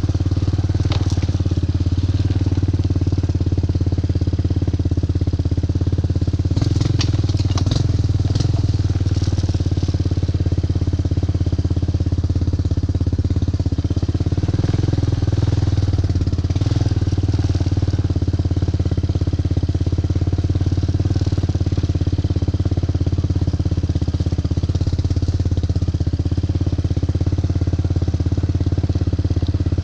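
ATV (four-wheeler) engine running steadily at an even pitch, with a few clicks or rattles about seven to eight seconds in.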